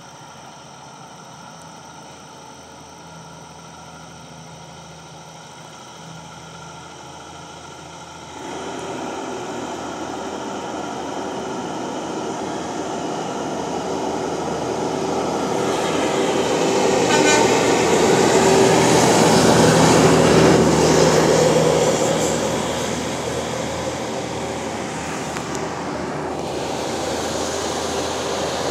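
A Kenworth T800 semi-truck's diesel engine and tyres on the highway, approaching and passing close by. The sound jumps up suddenly about a third of the way in, swells to its loudest about two-thirds through, then fades as the next truck comes on.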